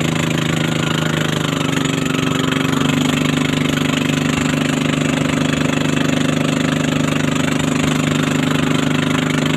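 A small motorboat's engine running steadily under way, with water rushing and splashing along the hull. The engine's pitch dips slightly and picks up again about a second or two in.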